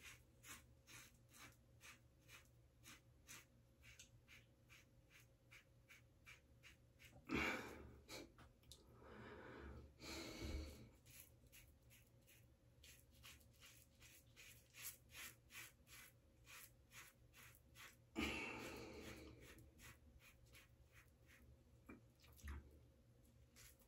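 1978 Gillette Black Beauty adjustable double-edge safety razor with a Gillette Nacet blade, at setting five, scraping through long lathered stubble in faint short strokes, about three a second. A few longer, louder bursts of noise break in, two close together about seven and ten seconds in and another about eighteen seconds in.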